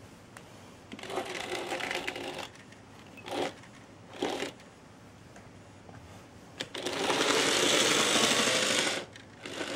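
N gauge model locomotive running on its track hauling two coaches, its small motor and wheels making a fast rattling buzz that comes and goes in fits and starts on track that has not been cleaned. The buzz is loudest and steadiest as the train passes close, about seven to nine seconds in.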